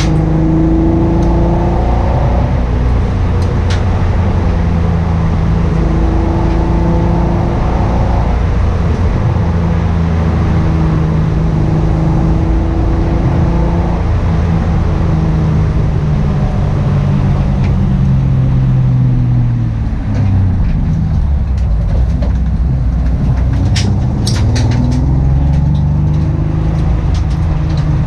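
Car engine with a misfire running steadily, its pitch dropping about twenty seconds in and then climbing again. A few sharp clicks come near the end.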